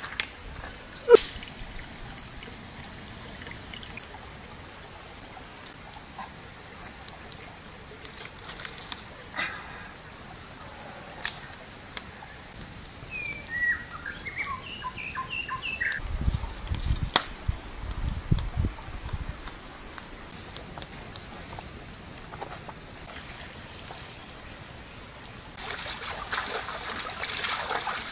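Steady high-pitched drone of insects, with a sharp knock of river stones being set down about a second in.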